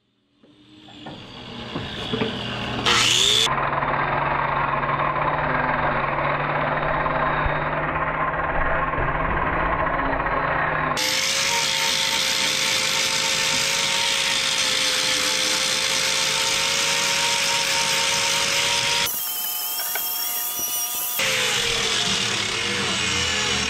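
Hand-held angle grinder with a trimming disc running and grinding horn off a cow's claws: a steady motor whine with a gritty grinding noise, cutting in and changing abruptly at several points.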